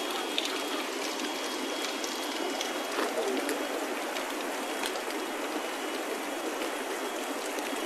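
Steady rushing water noise, a constant hiss, with a few faint small clicks and cracks scattered through it.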